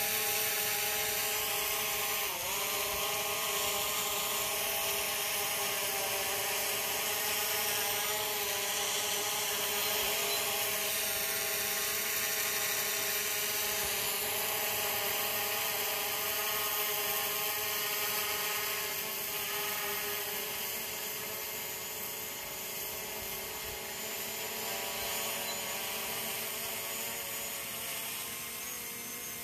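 Quadcopter drone's propellers and motors whining steadily, a stack of pitches that dips briefly about two seconds in and shifts slightly as the drone manoeuvres. The sound grows a little quieter near the end.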